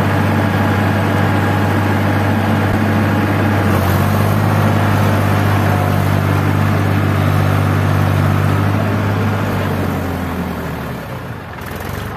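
Massey Ferguson tractor's diesel engine running hard and steady while the tractor is stuck in deep mud; the engine note drops away about nine to ten seconds in.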